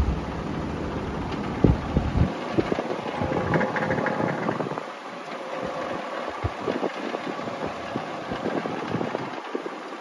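Old Lakewood box fan running steadily on freshly oiled bearings, its motor humming under the rush of the blades. Irregular light rattling runs through it from the loose leftover parts of its broken handle.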